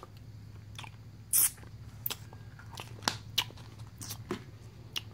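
Hard plastic surprise eggs and small candies being handled: a string of sharp clicks and knocks, with one louder rattling burst about a second and a half in.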